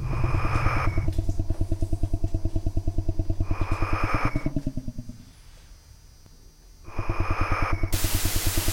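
Electronic film score: a fast, even pulsing synth bass drone, with a higher sustained synth chord coming in at regular intervals. It fades to quiet about halfway through, then returns, and a loud burst of hiss cuts in near the end.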